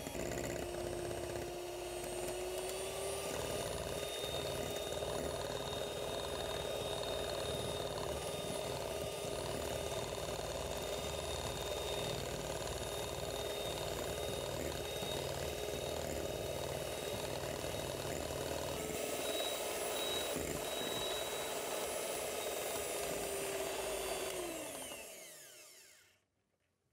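Electric hand mixer running steadily with its twin wire beaters whipping cream in a glass bowl, its motor pitch rising a little about three seconds in. Near the end the mixer is switched off and its pitch falls away as it spins down.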